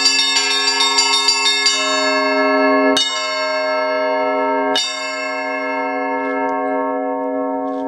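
Russian Orthodox church bells ringing. Small bells strike quickly, about three times a second, for the first second and a half. Then a larger bell gives two single strokes less than two seconds apart, each left to ring on and slowly fade over a steady low hum.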